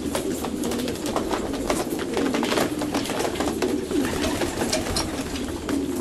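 A flock of racing pigeons cooing continuously in a crowded chorus, with many sharp clicks and taps scattered through it.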